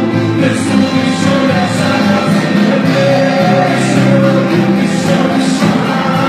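Live worship music from a church band, with singing over sustained chords and soft cymbal swells.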